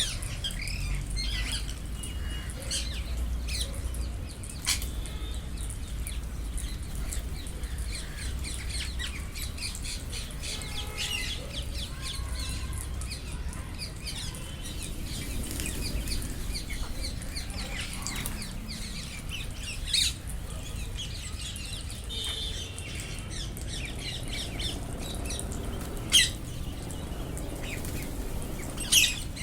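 Wild Indian ringneck parrots calling, with frequent short shrill squawks and chirps and a few louder, sharper shrieks spread through, under a low steady rumble.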